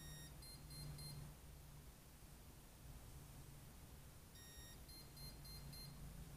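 Brushless ESC beeping through its motor in programming mode: a longer tone followed by a quick run of short beeps, repeated about four seconds later, the pattern that marks one item of the ESC's setup menu. A faint steady low hum runs underneath.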